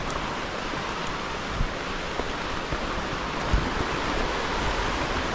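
Steady rushing of flowing water, a mountain river or waterfall, with two dull low thumps, one about a second and a half in and another near the middle.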